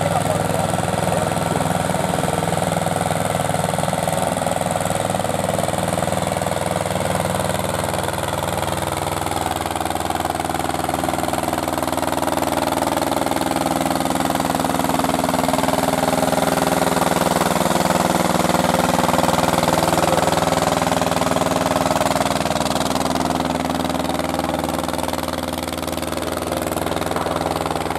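Vintage diesel tractor engine running steadily under load in a tractor pull, with a higher note that rises and then falls through the middle of the run.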